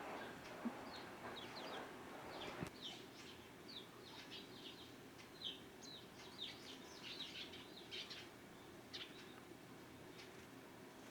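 Small garden birds chirping, a busy run of short, high notes that thins out near the end, with a couple of sharp clicks in the first three seconds.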